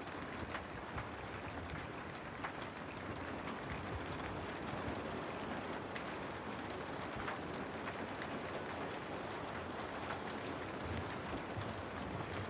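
Steady rain falling, an even hiss with scattered individual drop ticks, such as rain against a window.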